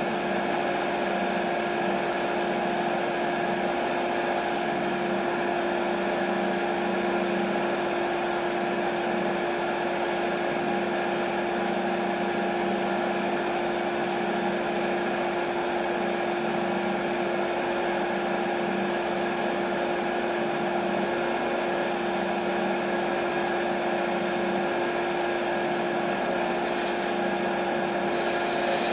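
TimberKing 1220 band sawmill running steadily: a constant machine hum with unchanging tones. A brighter hiss joins about a second before the end.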